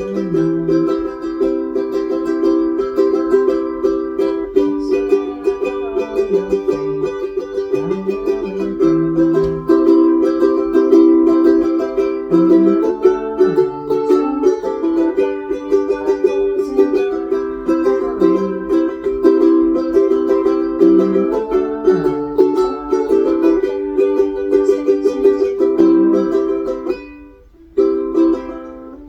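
Ukulele strummed, a steady run of chords without singing; the playing breaks off for about a second near the end.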